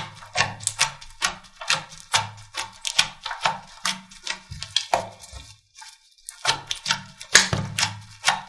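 Slime being squeezed and pressed, giving dense, irregular clicks and pops, several a second, with a short pause about six seconds in.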